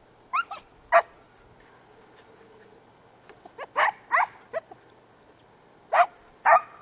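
Hunting dogs barking in short, loud yelps: three in the first second, a cluster of four or so around the middle, and two near the end. They are hounds giving tongue on the trail of a hare.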